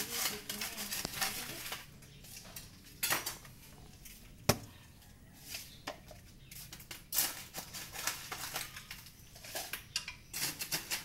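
Ice being scooped out of a plastic insulated cooler with a metal scoop: scattered clinks, scrapes and knocks of metal, ice and plastic. The sharpest knock comes about four and a half seconds in.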